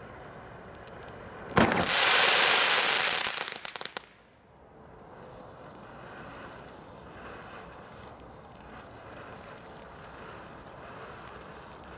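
Firework fountain spraying sparks: a sudden loud rushing hiss about a second and a half in, lasting about two seconds and breaking into rapid crackles before it cuts off, with a low steady hiss before and after.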